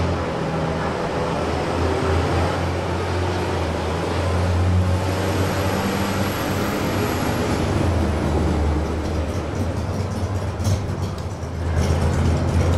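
A steady low rumble with an even hiss over it, the kind heard from road traffic or an idling engine.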